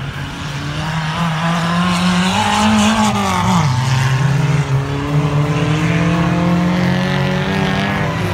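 Engines of old banger-racing cars running hard on a dirt track, several at once. One engine climbs in pitch and then drops sharply about three and a half seconds in, while the others keep running under it.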